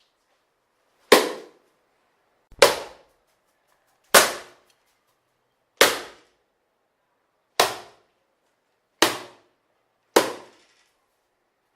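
A newspaper swatting at a mosquito, slapping against a wall seven times, about every one and a half seconds. Each slap is sharp and dies away quickly.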